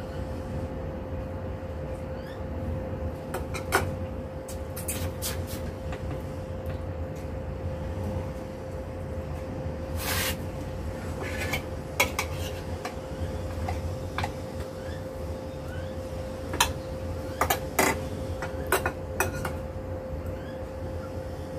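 Kitchen clatter: irregular knocks and clinks of pots, dishes and utensils being handled, bunched together about halfway through and again near the end, over a steady hum.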